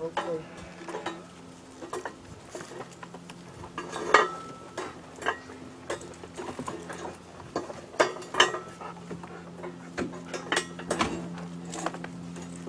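Old metal lead-melting ladles being handled, with irregular metallic clinks, knocks and scrapes of metal on metal, the sharpest about four and eight seconds in.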